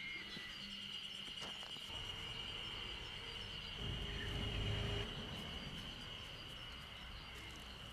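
Steady high-pitched insect trilling, with a louder low rumble for about a second around four seconds in.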